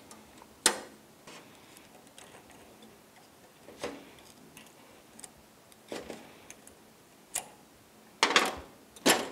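Light metallic clicks and ticks of small steel parts being handled: the cross-pin spring being fitted around the clutch dog on an outboard prop shaft. The clicks are scattered a second or more apart, with a louder cluster and a sharp click near the end.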